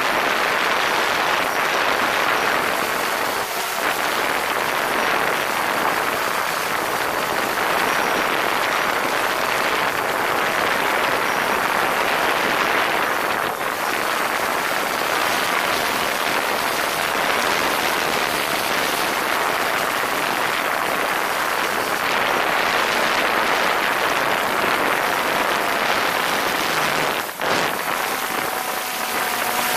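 Quadcopter drone's propellers and motors running steadily, a loud even rushing whir heard from close beneath the rotors, with a short dip about 27 seconds in.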